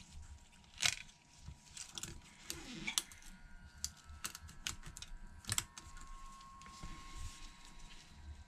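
Scattered small clicks and taps of precision repair tools against an iPhone 8's small parts while a plate is being taken off the display assembly.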